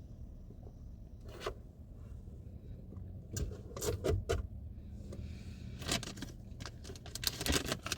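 Scattered rustles and scrapes of candy packaging being handled, coming in short clusters over a steady low hum.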